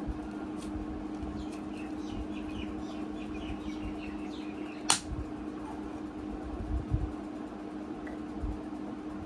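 Steady hum of a running ceiling fan. A quick run of small high chirps comes in the first few seconds, and a single sharp click lands about halfway through.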